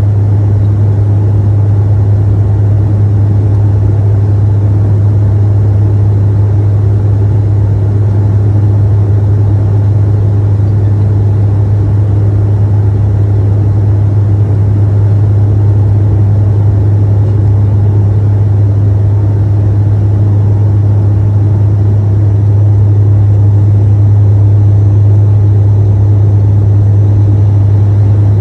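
Turboprop airliner's engines and propellers droning steadily, heard from inside the passenger cabin: a strong low hum of constant pitch over a rushing noise.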